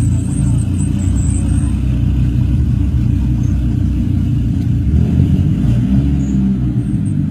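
Tuned Volkswagen Golf's engine and exhaust running steadily at low revs as the car creeps forward, with a brief rise and fall in pitch near the end.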